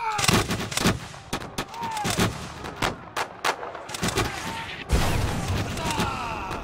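A man shouts the command "Fire!", then a ragged volley of flintlock musket shots follows, many sharp cracks in irregular succession, with a heavier report about five seconds in. Another shouted order comes near the end.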